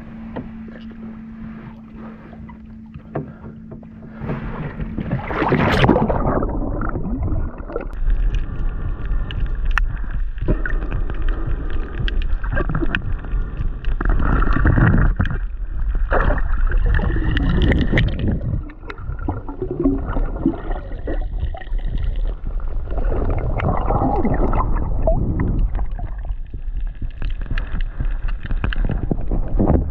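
A steady low hum, like a distant boat engine, for the first few seconds. About five seconds in, a loud splash as a swimmer goes into the sea, then muffled underwater rushing and bubbling of water moving around the microphone.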